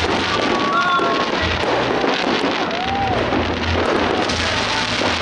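Continuous dense crackling and popping of fireworks and firecrackers.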